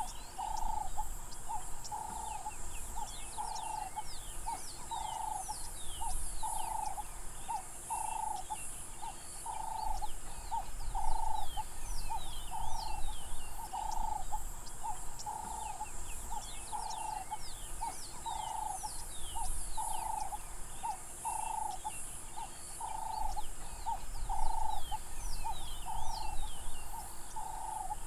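Bushveld ambience of birds and insects. A short mid-pitched call repeats about once a second throughout, over many quick, high, falling bird chirps and a steady high-pitched insect hiss.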